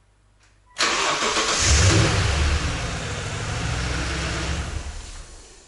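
Toyota Tundra's 5.7-litre V8 starting on a portable jump starter pack, with the headlights, heater and seat heaters switched on as extra load. It catches almost at once about a second in, flares up briefly, settles into a steady run, then falls away near the end.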